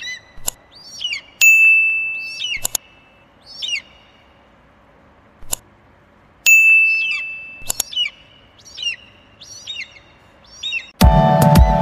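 Subscribe-button animation sound effects: sharp clicks and a ringing ding that fades out over about a second, heard twice about five seconds apart, with short bird-like chirps between them. Electronic music starts near the end and is the loudest thing.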